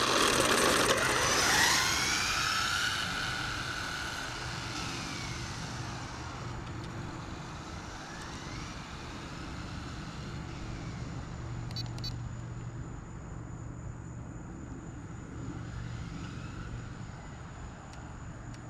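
Rlaarlo AK-917 RC car's brushless motor and tyres on asphalt as the car launches hard on a speed run. A high whine rises, then falls and fades over the first few seconds as the car runs off into the distance, followed by faint further whines from it far away.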